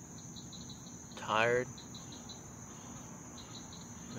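Crickets and other night insects: a steady high shrill drone with short chirps repeating in quick runs. About a second in, a man's voice is heard briefly, falling in pitch.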